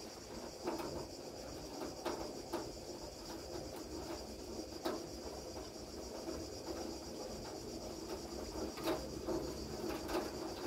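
Steady, high-pitched chirring of insects, with a few scattered knocks.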